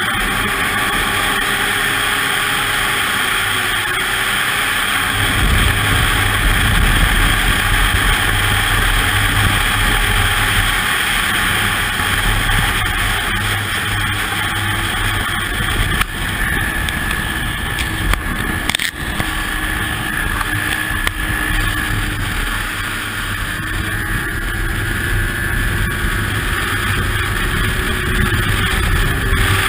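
Ski-Doo MXZ 800 snowmobile's two-stroke engine running steadily at speed, its pitch drifting a little. A heavy low rumble joins from about five seconds in, and a couple of sharp knocks come in the second half.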